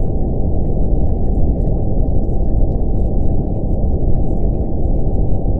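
Steady, deep brown noise with a 777 Hz tone held underneath it, and faint spoken affirmations flickering quietly behind them, the layered mix of a 'subliminal' audio track.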